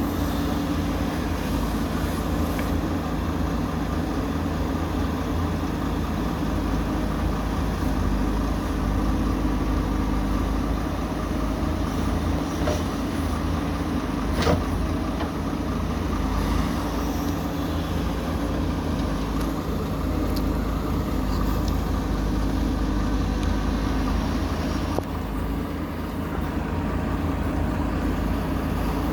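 Heavy diesel engine of earthmoving machinery running steadily, with a single sharp knock about halfway through.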